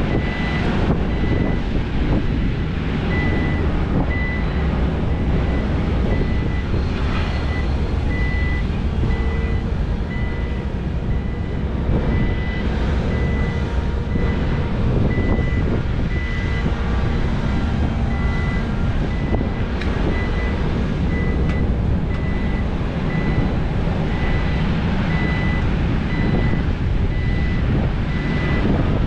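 Heavy diesel earthmoving machinery, a large SANY SY500 hydraulic excavator and dump trucks, running with a steady low drone, while a backup alarm beeps over and over in one high tone.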